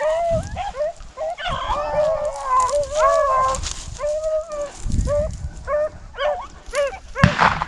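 A pack of rabbit hounds baying on a rabbit's trail: several dogs giving short, repeated yelping cries at different pitches, overlapping through the whole stretch, the sign the dogs are hot on the track.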